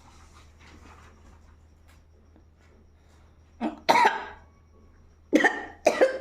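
A woman coughing in three loud bursts, one about four seconds in and two close together near the end, brought on as she tries to make herself sneeze.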